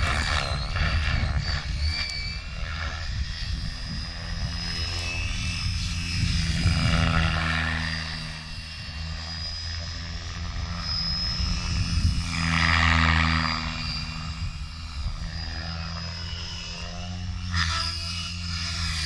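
Gaui X5 Formula electric RC helicopter in aerobatic flight: a steady high whine over the rotor blades' low chop. The sound swells louder twice, about seven and thirteen seconds in, as it swoops through manoeuvres.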